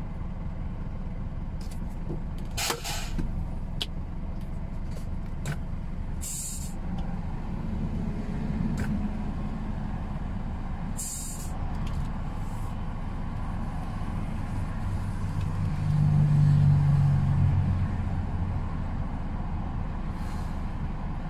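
Heavy truck's diesel engine idling, heard from inside the cab, with three short hisses of compressed air from the air-brake system. Near the end the engine note swells for about two seconds before settling again.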